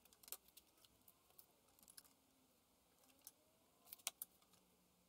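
Near silence broken by a few faint, sharp clicks and light taps, two close together about four seconds in: handling of copper tubes inside a blue PE plastic pipe.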